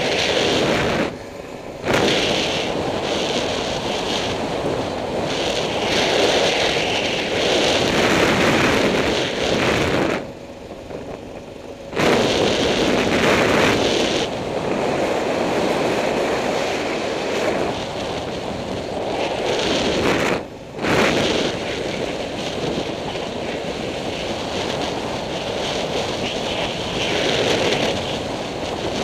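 Wind buffeting the microphone of a camera on a moving vehicle, a steady rushing noise that drops away briefly three times.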